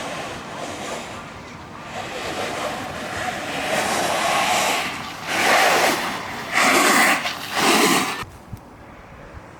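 Wind rushing over the microphone and wheels rolling on asphalt during a freebord ride, swelling into three loud noisy bursts before dropping off sharply about eight seconds in.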